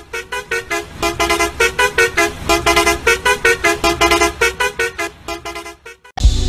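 Multi-tone musical vehicle horn playing a fast tune of short beeping notes, about four or five a second, over a low steady hum. It cuts off about six seconds in.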